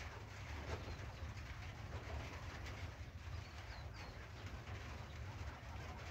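Doves cooing, with a few short, high bird chirps about three to four seconds in, over a steady low rumble.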